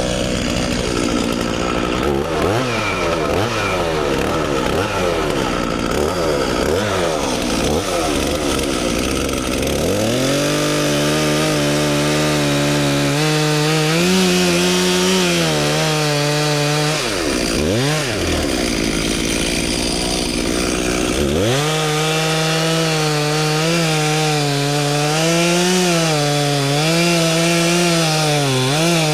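Two-stroke gasoline chainsaw revved up and down repeatedly, then held at steady high speed cutting into the trunk of a poplar tree. Its pitch drops and recovers twice, a little past halfway, as the cut eases and resumes.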